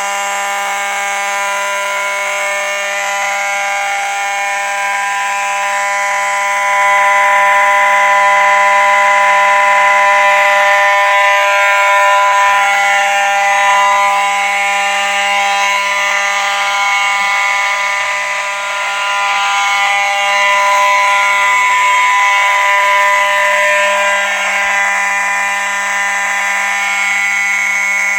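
Faraday 6234-E electromechanical fire alarm horn sounding continuously with a steady, unbroken buzzing tone, a little louder from about seven seconds in.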